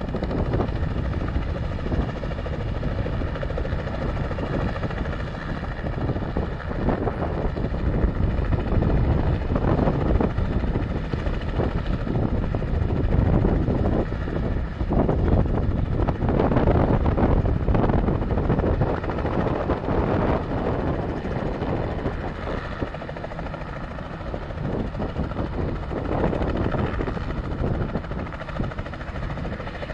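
Light helicopter hovering low over the ground, its rotor and engine running steadily. The sound grows louder through the middle and eases off in the later part.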